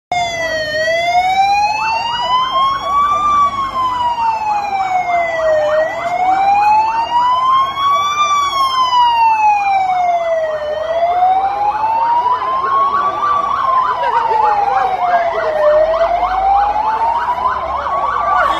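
Civil-protection ambulance siren wailing slowly up and down, one rise and fall about every five seconds. A second, rapidly pulsing siren tone joins about two seconds in.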